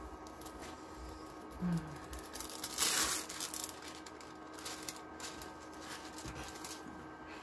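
Plastic packaging of diamond painting kits rustling and crinkling as it is handled, with one louder rustle about three seconds in. Under it runs the faint steady hum of a shoe dryer.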